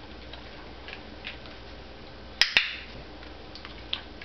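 Dog-training box clicker clicked once about two and a half seconds in, giving two sharp clicks close together, the marker that tells the dog he has earned a treat. A few faint ticks come before and after it.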